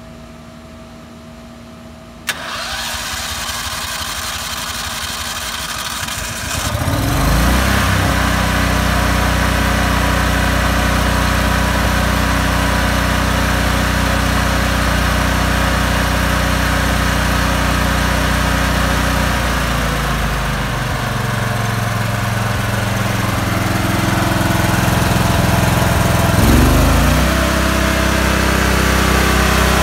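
Westinghouse WGEN12000DF dual-fuel portable generator engine starting on natural gas: a click about two seconds in, the electric starter cranking for about four seconds, then the engine catches and runs steadily. Its speed dips around twenty seconds in and comes back up near the end.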